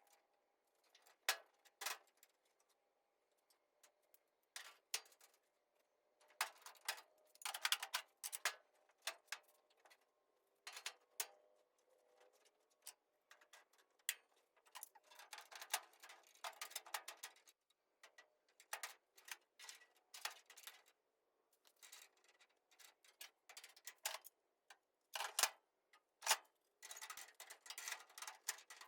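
Irregular light clicks, taps and short rustles of hand tools and sheet-metal parts being handled while measuring, with a few sharper clicks standing out.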